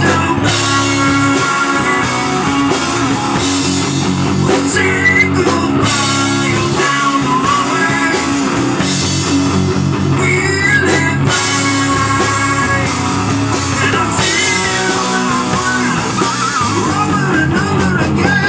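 Rock band playing live: electric guitar, bass guitar and drum kit, with a wavering lead line over a steady low end.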